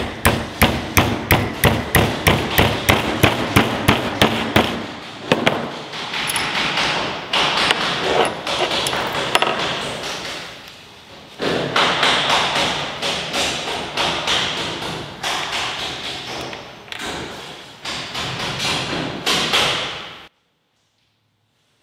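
Hammer striking a 3 mm spring-steel rod: a quick run of about four or five blows a second, then slower, scattered strikes with scraping noise between them, stopping abruptly near the end.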